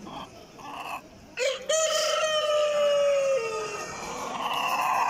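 A rooster crowing once, starting about a second and a half in: one long call of about two seconds that drops in pitch at the end.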